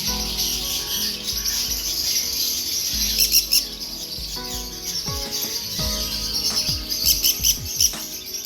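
Many parrots chirping and chattering at once in a continuous, dense twitter, with sharper calls about three and a half seconds in and again around seven seconds. Music with steady tones and falling slides plays underneath.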